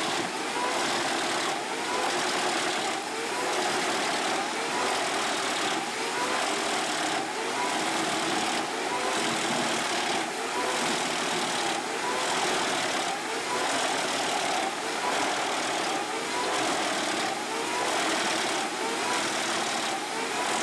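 Industrial wood shredder running steadily: a dense mechanical din with a short whining sweep that comes back about once a second.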